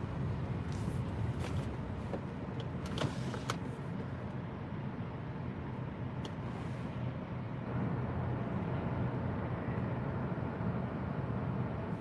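Car engine idling and cabin hum heard from inside the car as it rolls slowly and comes to a stop, with a few light clicks in the first half.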